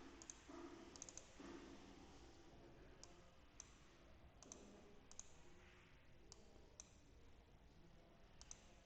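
Faint computer mouse clicks, single and in quick pairs, scattered irregularly over a quiet room background.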